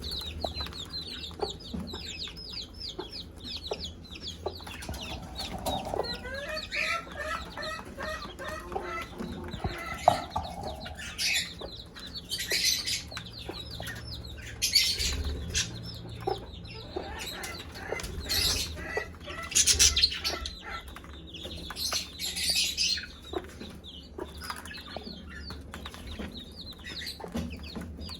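Mother hen clucking to call her chicks to food, with chicks peeping in quick high falling notes, most densely in the first few seconds. Several short bursts of scratchy noise come between about 11 and 23 seconds in.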